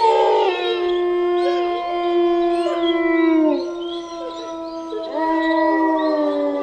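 A pack of wolves howling together: several long, overlapping howls held at different pitches, some sliding down as they end, with a fresh howl rising about five seconds in.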